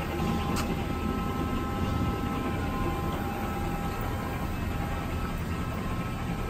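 Steady rumbling background noise of a large machine-shop floor, with a few faint steady whining tones and one small click about half a second in.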